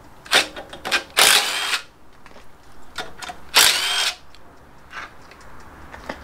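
DeWalt cordless driver run in short bursts, with two longer half-second runs, undoing the bolts of the clutch pressure plate on a Suzuki 1.6 engine.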